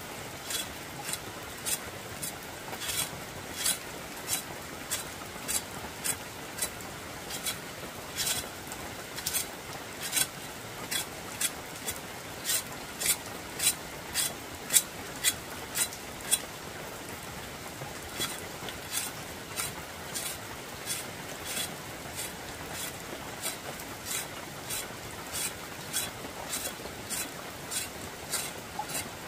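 A long run of sharp, crisp clicks, about one to two a second with a few short pauses, over a steady hiss.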